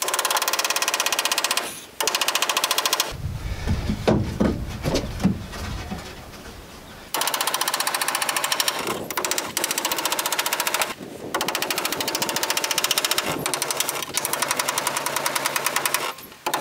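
Cordless impact driver hammering screws into pine sheathing boards, a fast steady clatter in several long bursts with short breaks. About three seconds in it stops for a few seconds of duller knocks and rumble before starting again.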